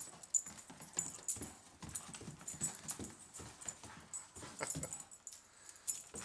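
A Doberman scrambling after a laser dot, its paws and claws making quick irregular thuds and clicks on carpet and wooden parquet floor, with a light metallic jingle from its collar.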